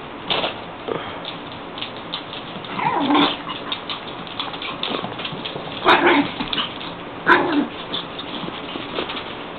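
Canines at play, wolves and puppies, giving three short calls about three, six and seven and a half seconds in.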